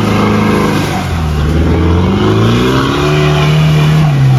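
Older Mahindra Thar's engine revving under load as it climbs a steep dirt trail; the pitch dips in the first second, then climbs and holds high near the end.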